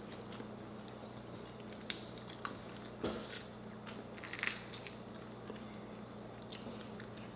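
Quiet eating sounds: a few short, faint clicks and crackles of crab shell being broken and picked apart by hand, with chewing, over a low steady hum.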